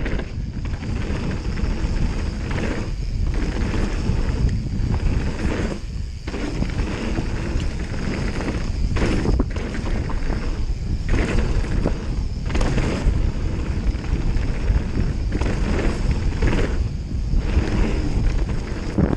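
Mountain bike riding fast down a gravel trail: tyres rumbling over the loose surface and the bike rattling over bumps, under heavy wind buffeting on the camera microphone, with frequent brief surges.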